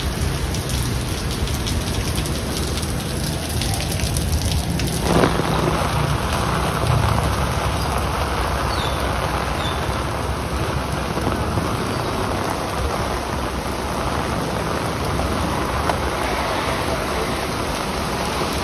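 Heavy rain falling steadily on a street, pavement and parked cars, a dense continuous hiss of drops. The sound changes abruptly about five seconds in.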